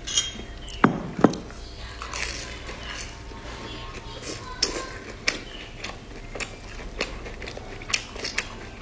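Close-miked chewing and biting of fried bread, with sharp wet clicks and small crunches scattered throughout. Two loud knocks come about a second in.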